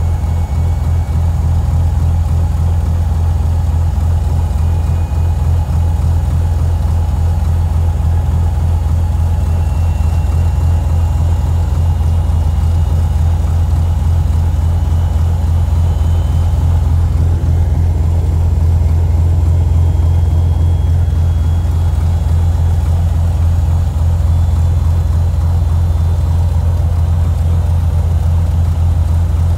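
Cessna 182A Skylane's six-cylinder Continental O-470 piston engine and propeller running steadily just after start-up, with a strong low drone and no change in speed.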